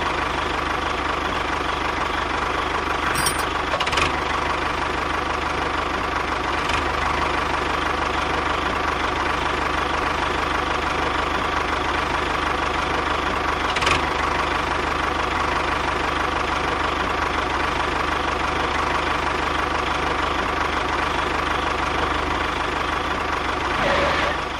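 Tractor engine running steadily at constant speed, with a few brief clicks along the way. It cuts off abruptly at the very end.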